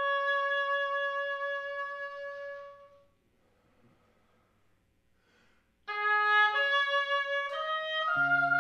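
A woodwind holds one long note that fades out after about three seconds. After a pause of nearly three seconds it plays a short phrase of stepping notes, and lower electric guitar notes join in near the end.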